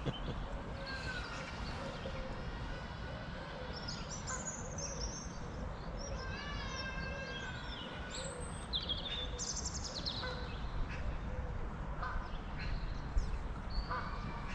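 Wild birds calling and chirping on and off, several short pitched calls and gliding notes, over a steady low background rumble.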